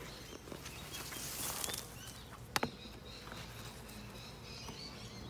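Honeybees buzzing steadily around an open hive, with a single sharp knock about two and a half seconds in.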